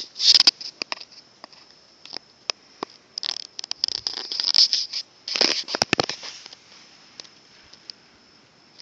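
A steady high-pitched electronic whine with irregular crackles and rustles over it, which bunch up about half a second in and again between about three and six seconds in.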